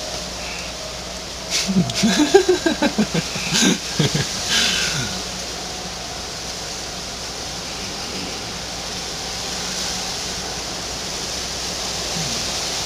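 Steady hiss on a video-call line, broken from about a second and a half in by a few seconds of a man's voice in quick short pulses with a couple of sharp clicks, then only the hiss again.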